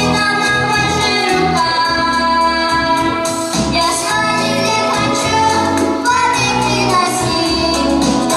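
Children singing a song in unison with instrumental accompaniment and a steady beat.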